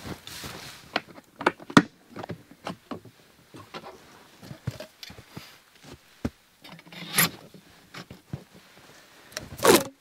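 Footsteps crunching in deep snow, with scattered clicks and knocks of gear being handled and two longer rustling crunches, one past the middle and one near the end.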